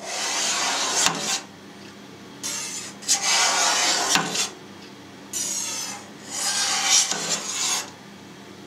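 Long knife blade scraping against a stainless-steel pan as it is drawn through set cheese curd to cut it. Four rasping strokes of about a second or more each, with a couple of light clicks between them.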